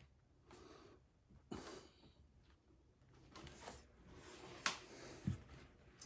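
Faint handwork on saddle leather with cantle pliers: soft rubbing and breath-like swishes, then a sharp click a little over two-thirds through and a dull knock shortly after.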